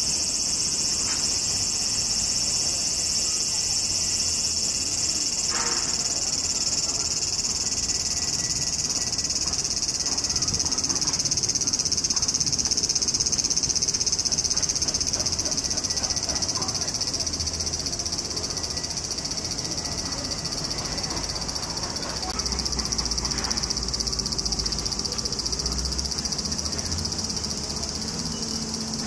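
A chorus of summer cicadas buzzing in a steady, high-pitched drone.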